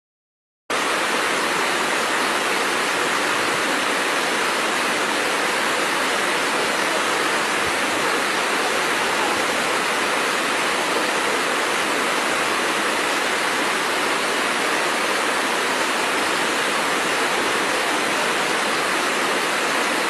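Steady rush of a waterfall cascading over rocks, even and unbroken, starting abruptly just under a second in.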